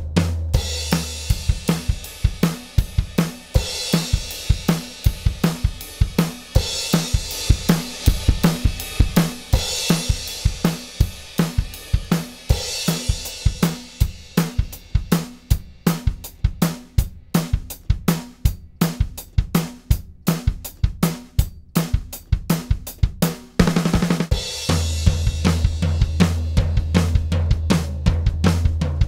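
Recorded drum kit groove with kick, snare, hi-hat and a cymbal crash every few seconds, played as demo audio for a channel strip compressor. A low bass note sounds under it at the start, drops out, and comes back after a quick fill about 24 seconds in.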